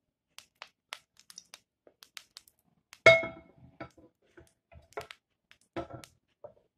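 Light kitchen clicks and clinks: scattered small ticks, then one sharp clink about three seconds in that rings briefly, and two or three softer clinks near the end.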